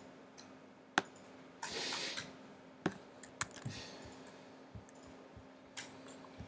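Scattered single clicks of a computer keyboard and trackpad, a few keystrokes a second or more apart, with a short burst of noise about two seconds in and a faint steady hum underneath.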